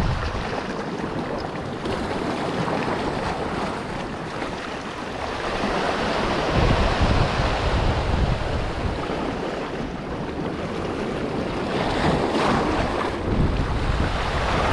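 Small sea waves washing and foaming over a rocky reef shoreline, rising and falling in surges, with wind buffeting the microphone.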